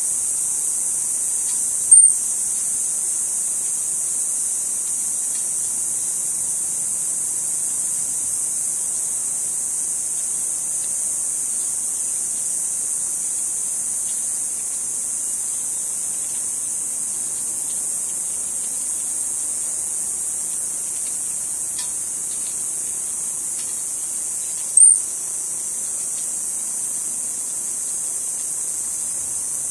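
Steady high-pitched drone of insects calling together. Two short, sharp high chirps stand out, one about two seconds in and another some 25 seconds in.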